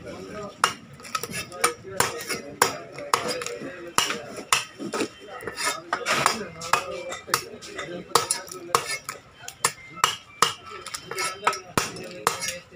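A knife chopping and scraping blue swimmer crabs on a wooden chopping block: irregular sharp knocks and cracks, a few a second.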